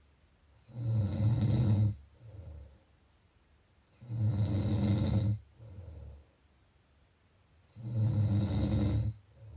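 A person snoring in a slow, even rhythm: three loud snores, each lasting about a second and coming about three and a half seconds apart, each followed by a softer breath out.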